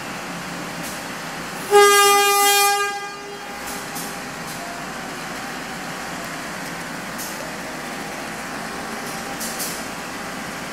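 Diesel locomotive horn on a KAI passenger train: one loud blast of about a second and a half, about two seconds in, that fades away. It is the driver's departure horn (semboyan 35), sounded as the train is about to leave the station. A steady background hum runs under it.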